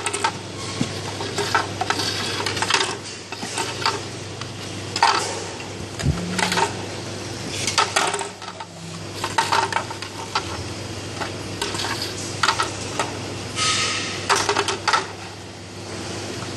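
Hard plastic housings clattering and clicking against each other and the table as they are handled and shuffled, in irregular bursts, over a steady low hum.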